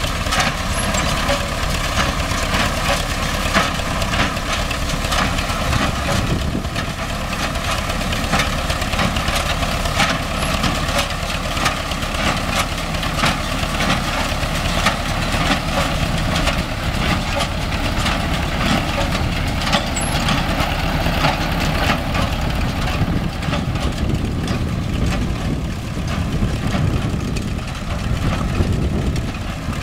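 MTZ-5 tractor's diesel engine running steadily, powering a Vestjyden hay baler, with a constant clatter of many small knocks and clicks.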